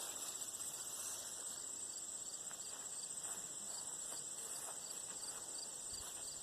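Insects, crickets by the sound, keeping up a steady high-pitched trill, with a second, slower pulsing chirp beneath it.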